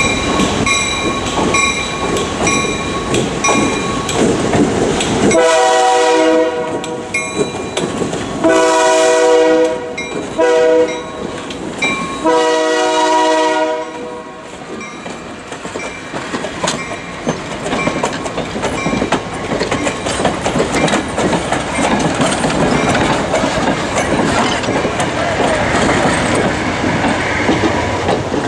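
Horn of an MLW/ALCO C424 diesel locomotive sounding four blasts, long, long, short, long: the grade-crossing signal. The blasts play over the steady rumble and clatter of the moving train. Before the horn, a ringing tone repeats about twice a second.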